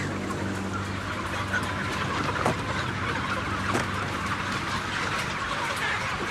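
A large flock of broiler chickens clucking and calling together in a dense, continuous chatter, over a steady low hum from the house's big ventilation fans that fades near the end.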